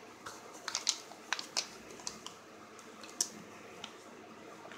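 Light plastic clicks and crinkles from hands handling a SanDisk SSD Plus drive's plastic packaging and picking at its sticker: a scatter of short taps over the first two seconds, then one more a little past three seconds.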